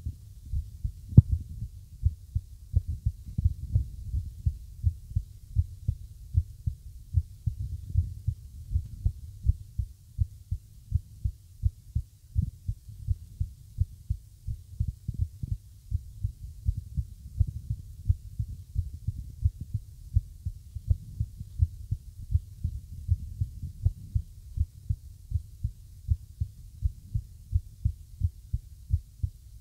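Human heartbeat recorded close up: low thumps about twice a second at uneven intervals, an irregular heart rhythm.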